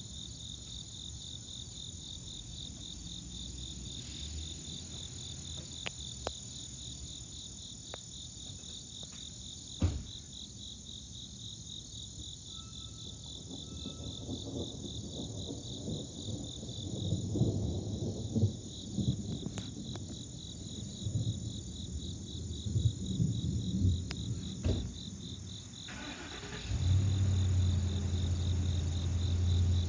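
Insects chirping steadily in a fast, even pulse. About halfway in, a low rumble of distant thunder builds in uneven swells, growing stronger and steadier near the end.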